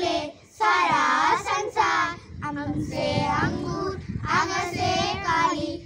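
A small group of children singing together, a Hindi alphabet (varnamala) song, in drawn-out phrases.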